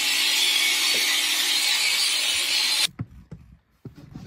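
Electric animal shearing clipper running with a steady high buzz as its blades cut through thick fleece; it cuts off abruptly about three seconds in, leaving a few faint knocks.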